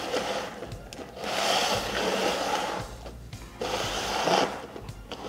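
Plastic cups being slid around on a wooden tabletop: three scraping slides, each one to two seconds long.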